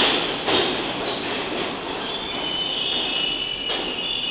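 R46 subway cars rolling past along a station platform, the wheels clicking sharply over rail joints. A high steady wheel squeal comes in about halfway through.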